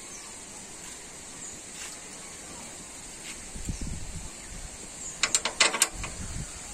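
A quick run of sharp metallic clicks and scrapes, a hand tool worked against the sheet-metal cover of a Greaves power tiller, bunched into less than a second about five seconds in, with softer handling knocks around it.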